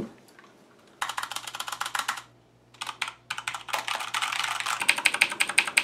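Corsair K95 keyboard fitted with blue clicky switches being typed on fast: a run of rapid clicks about a second in, a short burst near three seconds, then steady typing that grows louder toward the end.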